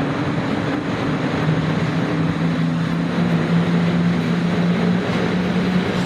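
EU07 electric locomotive pulling a passenger train away from a standstill, its traction motors and blowers giving a steady low hum over rumbling noise. The hum steps up slightly in pitch near the end as the train gathers speed.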